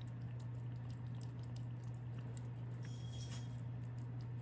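A cat eating wet food from a metal bowl: soft, irregular chewing and licking clicks over a steady low hum.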